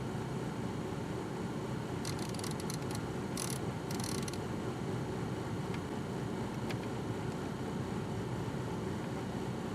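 Steady low hum inside a car's cabin, with a few brief faint clicks about two to four seconds in.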